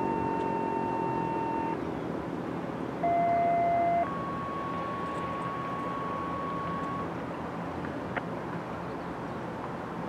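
Two-tone sequential radio paging or activation tones, heard over a scanner. A steady tone ends about a second and a half in. About three seconds in comes a loud one-second tone, then a higher steady tone that lasts about three seconds. Under the first tone, the ASC OM-120 mechanical siren is winding down, its pitch falling as it fades out.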